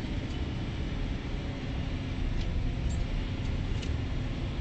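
Scania 124 470 truck's 12-litre straight-six diesel engine and road noise, heard from inside the cab while driving, as a steady low drone. A few light clicks come through it.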